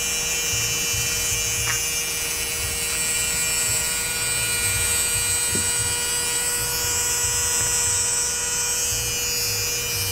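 Brushed electric RC car motor running free, a steady, even whine. It is spinning out the water left from a submerged run-in, with its bushings freshly oiled.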